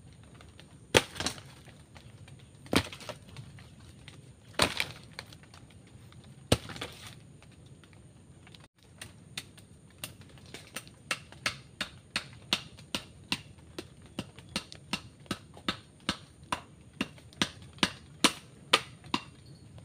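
Sharp knocks of a hand blade chopping bamboo: four single blows about two seconds apart, then a steady run of quicker blows, about two a second.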